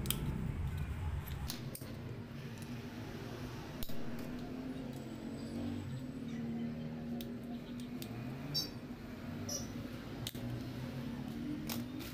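Scattered metal clicks and clinks of pliers and a screwdriver working at a foot pump's fitting to get its pin out, over a steady low hum.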